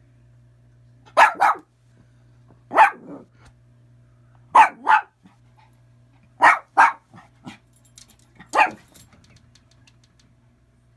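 Small fluffy dog barking at its own reflection in a mirror: short sharp barks, mostly in quick pairs, about every two seconds, with a few softer ones between.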